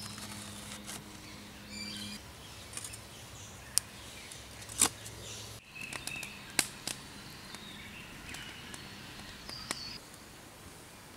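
Forest ambience with birds chirping, and a few sharp clinks and knocks as clay roof tiles are set into a clay kiln, the loudest about five seconds in. A low steady hum in the first two seconds, and light crackling from the wood fire in the kiln in the second half.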